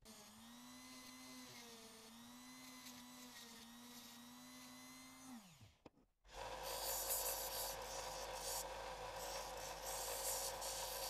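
A cordless drill's motor runs faintly at a steady, slightly wavering pitch, then winds down about five seconds in. After a brief gap, a bench belt sander runs with a steady motor hum as a small needle blank is ground against the belt, a louder scraping grind.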